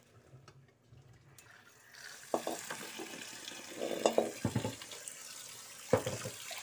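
Kitchen tap water running into a steel sink, starting about two seconds in, with a few clanks of a metal wok against the sink.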